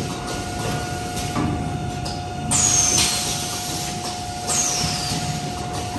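Automatic panettone cup forming machine for round corrugated paperboard cups running: a steady mechanical hum with a constant tone, broken twice by a sharp hiss with a falling whistle.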